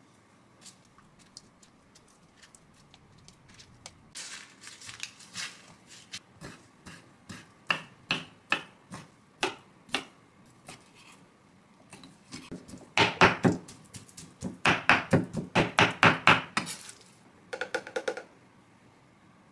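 Kitchen knife chopping thawed shrimp on a wooden cutting board. Scattered taps at first, then a fast run of loud chops, about five a second, in the second half.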